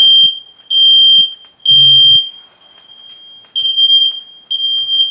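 Smoke alarm sounding its high-pitched beep in the three-beep evacuation pattern: three beeps, a pause, then three more.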